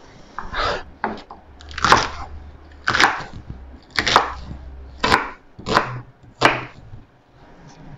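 Kitchen knife chopping vegetables on a wooden cutting board: about eight separate sharp strokes, roughly one a second.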